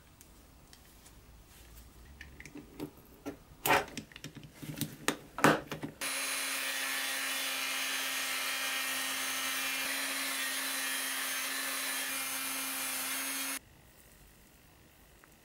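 A few light handling knocks and clicks. About six seconds in, a high-speed rotary tool with a sanding drum starts running with a steady whine as a small piece of white plastic is sanded against the drum. The sound stops abruptly near the end.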